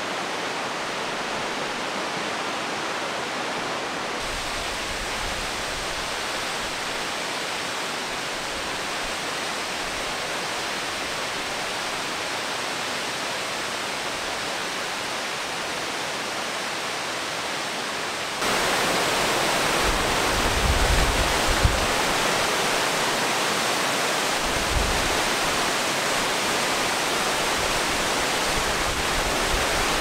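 Rushing water from a tall waterfall pouring onto rocks and into its rocky stream, a steady hiss. It jumps suddenly louder about eighteen seconds in, with a few low rumbling bumps soon after.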